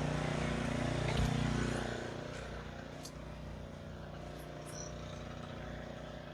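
An engine running steadily with an even hum, growing louder over the first couple of seconds and then settling back, with a few faint clicks over it.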